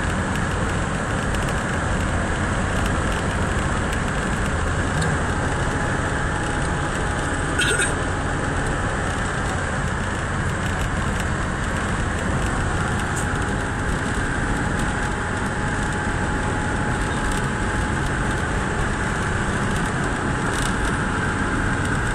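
Steady road and engine noise inside a moving car at highway speed, with one brief click about eight seconds in.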